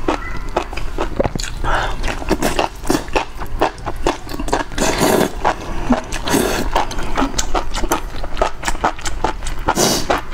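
Close-miked eating of enoki mushrooms in spicy broth: wet chewing and mouth clicks throughout, with about three longer slurps.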